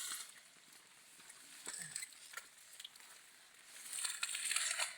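Hands working in wet mud and sand of a riverbank hole: a few soft knocks, then a longer rustling scrape near the end.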